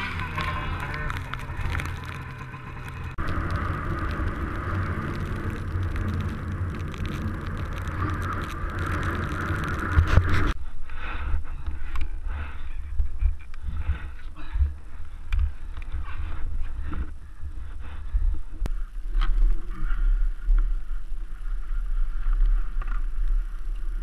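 Snowmobile engines running, with wind and snow noise on a helmet-mounted camera; the sound changes abruptly about ten seconds in to a lower engine note with scattered knocks and scrapes.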